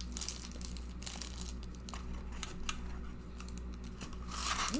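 Scattered light crinkles and clicks of a foil snack wrapper being handled.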